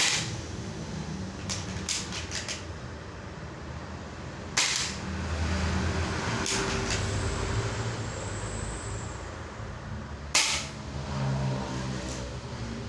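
Spring-powered airsoft Barrett M82 replica firing three sharp shots, several seconds apart, the second and third the loudest. A quick run of smaller clicks comes between the first and second shots, and two more between the second and third, over a steady low background hum.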